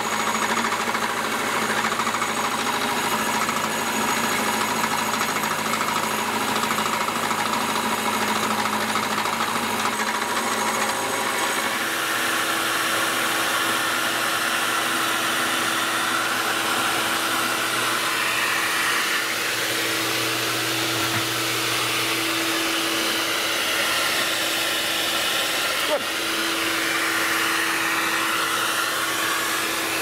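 Milling machine running, its end mill cutting along the edge of a metal part to square off a rounded edge: a steady machining noise. About twelve seconds in a steady hum joins in and holds.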